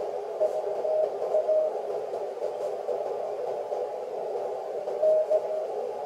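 Morse code (CW) signal heard on a ham radio receiver: a faint tone keyed on and off in dots and dashes during the first two seconds and again near the end, over a steady hiss of band noise.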